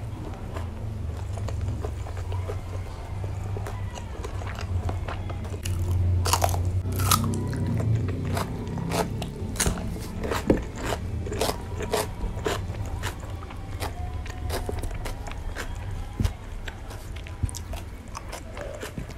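Close-miked chewing with many sharp, crisp crunches from about six seconds in: a person eating crunchy raw vegetables with rice and fried catfish.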